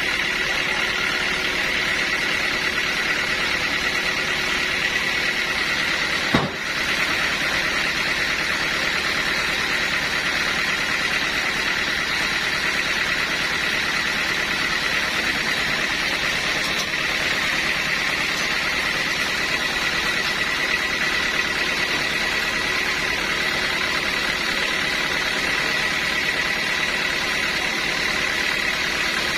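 Sawmill saw running steadily with a constant high whine over a mechanical noise, with one sharp knock about six seconds in.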